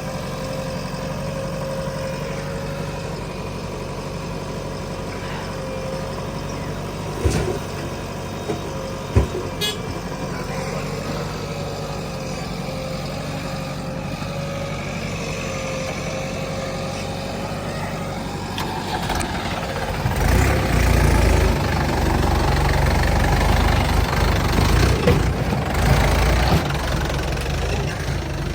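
Diesel engines of a JCB 3DX backhoe loader and a tractor running steadily with a constant whine, with two sharp knocks about seven and nine seconds in. From about twenty seconds the engine noise grows louder and rougher for several seconds, as under working load, then settles back.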